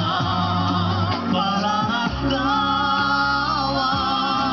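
A Russian-language pop farewell song played over loudspeakers, in a passage between sung lines: long wavering held notes over a steady bass.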